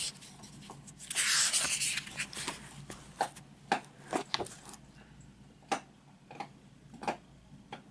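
Pages of a paperback book being turned by hand: a paper rustle for about a second, then a string of sharp, irregular paper flicks and taps that thin out toward the end.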